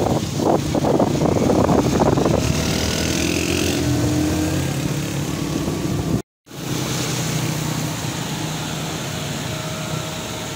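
Motorcycle engine running while riding, with wind buffeting the microphone, heaviest in the first couple of seconds. The sound cuts out completely for a moment about six seconds in, then the steady running noise comes back.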